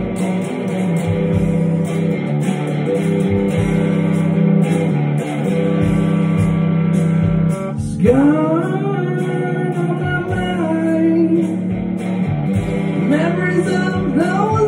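Electric guitar played steadily, a Les Paul-style guitar, with a man's singing voice coming in over it about eight seconds in and again near the end.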